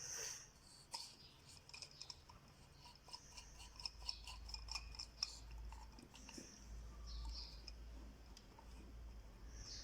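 Faint, irregular small clicks and scratching, the handling of small parts and tools, with a low hum coming in about three seconds in.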